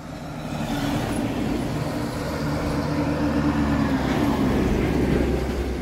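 Large bus passing close by on a mountain road, its engine a steady low note with tyre and road noise that builds over the first second and then holds.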